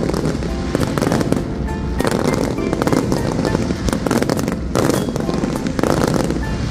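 Fireworks crackling and popping in a dense, irregular stream, with music playing over them.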